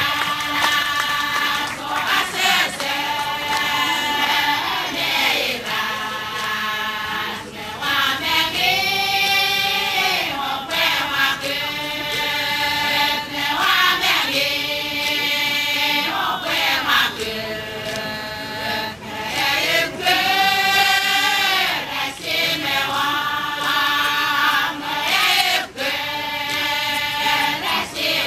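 A group of Satawal women chanting a dance song in unison, in sustained phrases whose pitch rises and falls, each phrase breaking off after a second or two.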